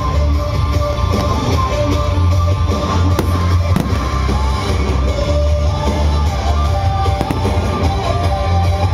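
Rock music with a heavy bass, with fireworks bursting over it. Sharp bangs stand out about three seconds in and again about seven seconds in.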